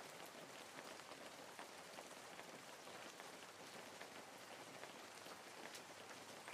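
Faint, steady rain falling, with many small drop ticks.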